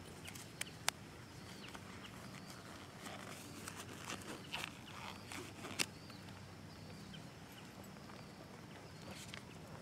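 Scattered rustling and handling noise with a few sharp clicks, over a faint steady low hum.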